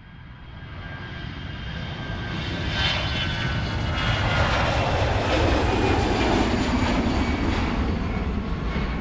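Airplane taking off: engine rumble with a high whine, growing steadily louder over the first few seconds and peaking about halfway through, then easing slightly.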